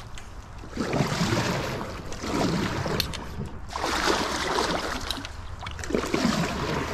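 Kayak paddle strokes dipping and splashing, with water washing along the hull, four strokes about one and a half seconds apart.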